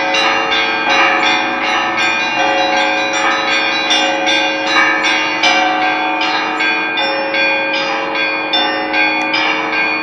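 Russian Orthodox church bells ringing: several bells of different pitches struck in a quick, steady pattern, each stroke ringing on into the next over the lasting tones of the lower bells.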